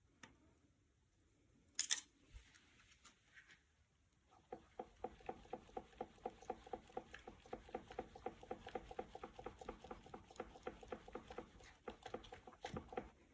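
Faint mechanical sound from a mountain bike fitted with a FOX DHX rear shock: one sharp knock about two seconds in, then a fast, even run of metallic clicks with a ringing tone, about four a second, stopping near the end.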